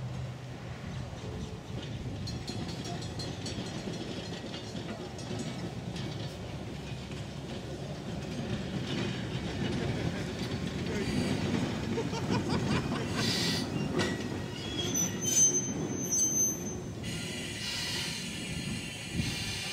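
Two-car electric interurban train rolling slowly over yard trackwork with a steady rumble and a few sharp knocks at rail joints. In the last few seconds its wheels squeal high on the curve.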